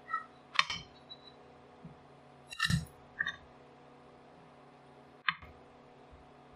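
Spatula knocking against a nonstick frying pan: three sharp clacks about two and a half seconds apart, the middle one loudest, over a faint steady hum.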